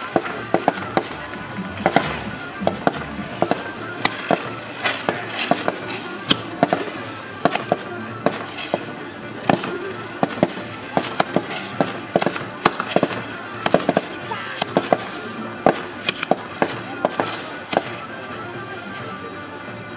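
Fireworks display: aerial shells bursting in a continuous, irregular barrage of sharp bangs, often several a second.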